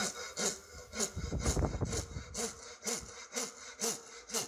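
Japanese pull saw cutting through timber right on the ink line, in steady, even strokes about two a second.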